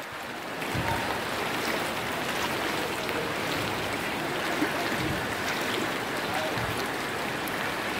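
Steady rushing noise of floodwater moving through a flooded street.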